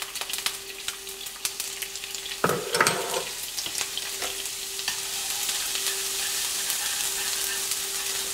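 Minced garlic in oil sizzling and crackling in a hot nonstick frying pan, the sizzle growing steadier and louder as it fries. A brief louder clatter comes about two and a half seconds in.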